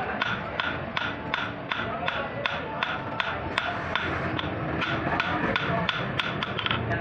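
Hand metalworking on an old sickle's steel blade: sharp strikes in a steady rhythm, about two and a half a second, over a constant rasping, scraping noise.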